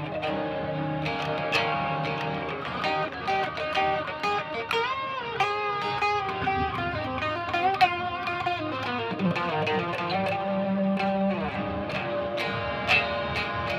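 Electric guitar playing a melodic line of picked notes over lower sustained tones. A few seconds in, several notes bend up and back down in pitch.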